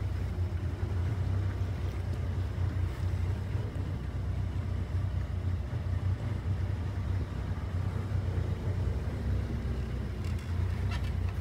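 Motorboat engine running steadily under way, a constant low hum, with wind noise on the microphone.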